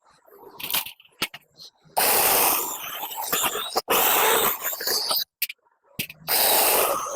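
Rough scraping and rustling in three spells of a second or two, with a few short clicks between: a branch being cut down for firewood.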